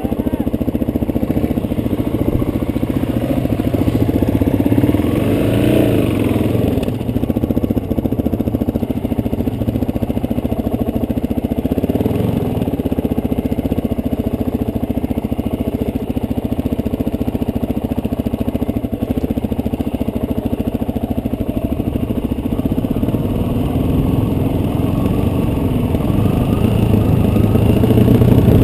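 Suzuki DRZ400S single-cylinder four-stroke dirt bike engine running under way on a dirt trail, its note rising and falling with the throttle and getting louder near the end.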